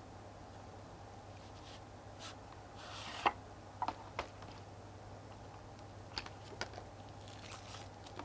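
Faint handling of the coin set's packaging: a soft rustle, then a sharp click about three seconds in, followed by a few lighter clicks and ticks.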